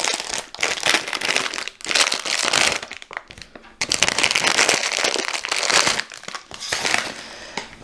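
Plastic packaging crinkling and rustling as it is handled, in bursts with a short lull about three seconds in.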